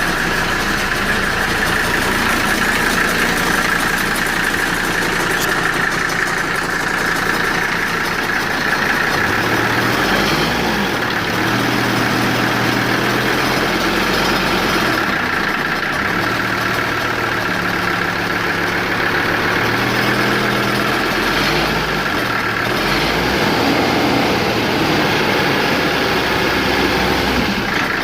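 Mercedes-Benz W123 engine running at idle with a steady noise that the owner says is a bad fan clutch, not engine knock. The engine note shifts up and down a few times in the middle.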